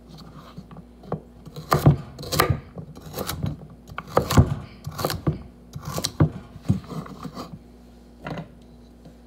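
Chef's knife chopping carrots on a wooden cutting board: about a dozen uneven knocks of the blade striking the board, starting a couple of seconds in and stopping a little before the end, with one last knock near the end.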